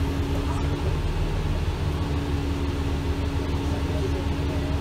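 Alexander Dennis Enviro 400 double-decker bus running on the road, heard from inside the passenger saloon: a steady low rumble with a held whine that drops out about a second in and returns at a slightly higher pitch.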